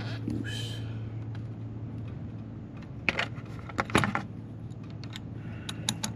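A few sharp metallic clicks and clinks of a hand wrench working on small cover bolts, about three and four seconds in and again near the end, over a steady low hum.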